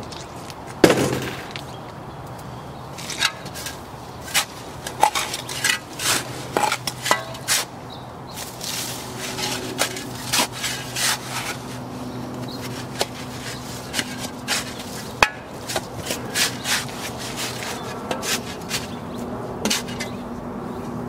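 Irregular knocks, clicks and scrapes of hand work with a shovel, wheelbarrow and wooden post while setting the post in concrete mix, with one loud knock about a second in. A low steady hum joins from about nine seconds in.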